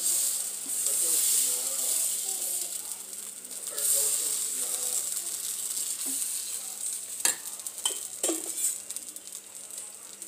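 Dosa batter sizzling in a hot pan as a ladle spreads it in circles. A few sharp clicks come about seven to eight seconds in.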